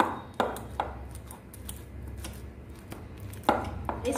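A metal fork mashing peeled overripe bananas in a plate, its tines clicking and scraping against the plate: three sharp clicks in the first second, softer scraping, then another sharp click near the end.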